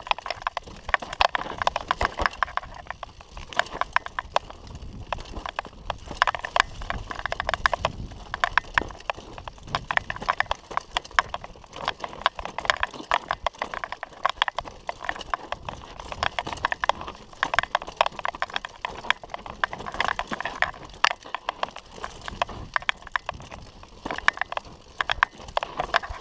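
Mountain bike descending a rocky trail: tyres crunching over loose stones and the bike rattling, a dense, uneven clatter of clicks and knocks.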